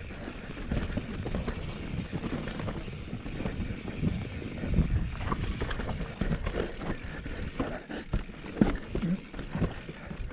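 Mountain bike descending a rough dirt trail: tyres rumbling over dirt and rocks, with frequent short knocks and rattles from the bike, and wind buffeting the microphone.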